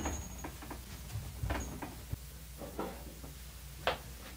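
A few faint, scattered taps and knocks of handling and movement in a small room, with one sharper knock near the end.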